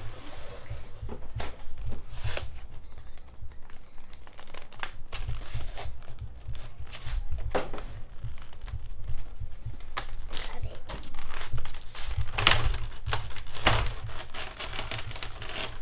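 Packaging of a Pokémon trading-card box being torn open and handled: irregular crinkling and tearing with scattered clicks and handling bumps, loudest a little past the middle.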